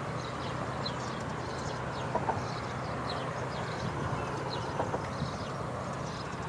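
Steady outdoor background noise with faint, short, high chirps repeating irregularly throughout, and a couple of small soft clicks about two seconds in and again near five seconds.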